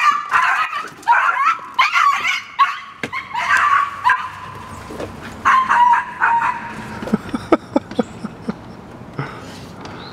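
Morkie puppy (Maltese–Yorkshire terrier cross) giving shrill, screeching barks in quick runs as she chases a squirrel. The barking fills the first four seconds or so and comes again in a short run about six seconds in, then gives way to a few light knocks.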